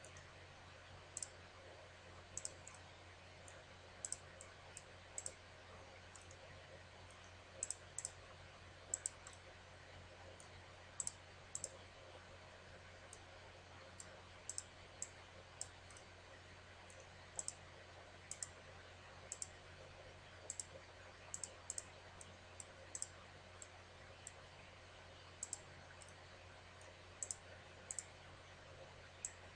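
Computer mouse clicking at irregular intervals, many of the clicks in quick pairs, over a faint steady low hum.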